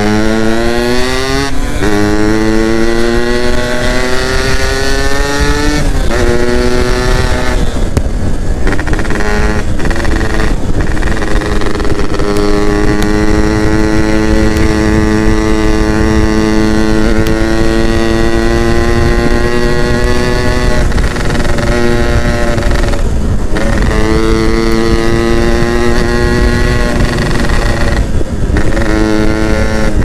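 Yamaha F1ZR's 110 cc single-cylinder two-stroke engine under hard acceleration. Its pitch climbs through several gears in the first twelve seconds, with a short break at each upshift. It then holds a steady cruise for about ten seconds, and climbs through two more upshifts near the end.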